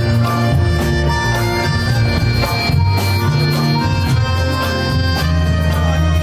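Live band playing an instrumental: a piano accordion carries the melody in long held notes, over steady hand-drum and drum-kit percussion.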